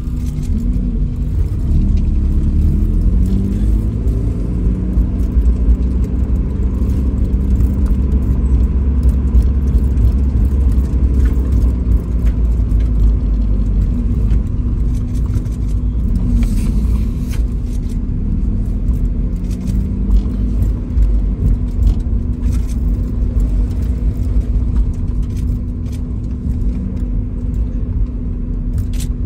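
Mazda Roadster's engine running at low speed, with a steady low rumble from the drive, heard from inside the cabin.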